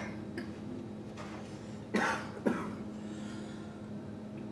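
Demolition excavators running with a steady low drone. Two short, harsh noises come about two seconds in, half a second apart.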